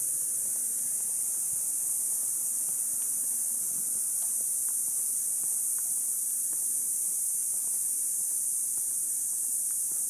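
Steady, high-pitched hiss of a cicada chorus, unbroken and even in level.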